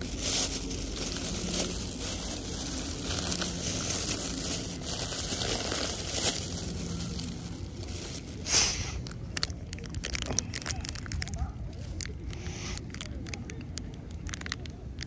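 A food wrapper being handled and torn open: about eight seconds of continuous rustling and crinkling, then scattered sharp crackles.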